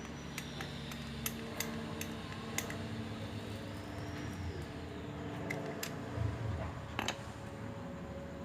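Sharp small clicks and clinks of a wall light switch's parts being handled and worked on as its dirty insides are cleaned, about eight scattered through, over a steady low hum.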